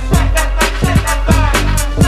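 Miami bass dance music: a drum-machine beat of about four hits a second over a deep, booming bass.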